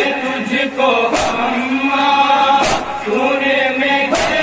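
A group of men chanting an Urdu noha in unison, long sustained lines whose pitch slides up and down. Hands slap chests in time, a sharp strike about every one and a half seconds: the rhythmic chest-beating of matam.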